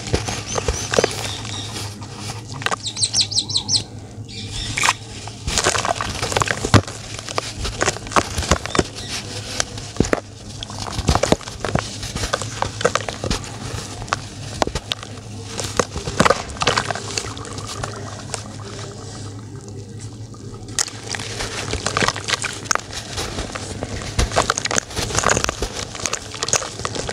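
Hands squeezing and crumbling lumps of dry, gritty dirt, a dense, uneven run of crunching and crackling as the clods break apart and the crumbs fall into a plastic tub holding water.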